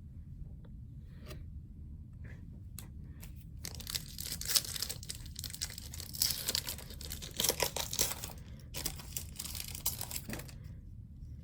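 A hockey card pack's wrapper being torn open and crinkled in the hands, with a few light ticks first, then dense crinkling from about four seconds in that stops briefly and goes on until shortly before the end.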